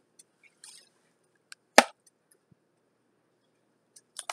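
Scattered small clicks and taps of hands handling a small pot, with one sharp tap a little under two seconds in and a quick run of clicks near the end.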